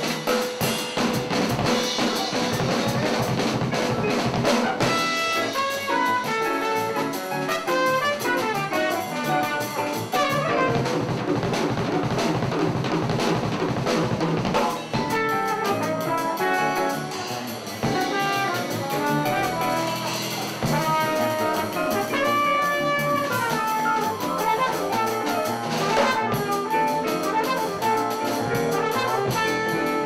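Small jazz combo playing live: a trumpet carries the melody over a drum kit, with upright bass and keyboard in the rhythm section.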